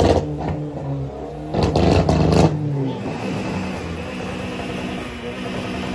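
Car engine revving hard for a moment about a couple of seconds in, then the revs falling away to a steadier, lower running note.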